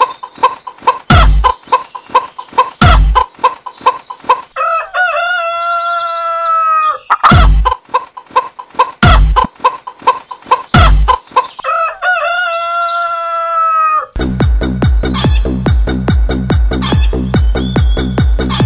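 Upbeat background music built on a steady kick-drum beat with chicken clucks and a rooster crow; the same long crow comes twice, several seconds apart. Near the end it changes to a denser electronic beat.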